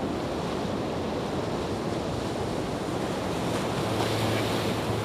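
Floodwater rushing across a road as a steady wash of noise, with wind buffeting the microphone. A steady low hum comes in near the end.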